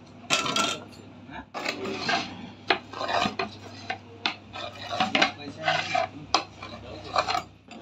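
Rotary pizza cutter's metal wheel rolling through a baked pizza in a dozen or so short, irregular strokes, with a few sharp clicks among them.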